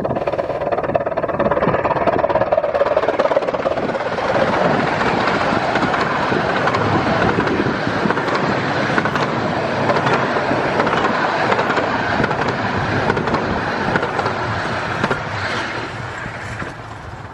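15-inch gauge miniature steam locomotive and its train going past at speed, a dense rushing and rattling that holds loud and then dies away over the last couple of seconds.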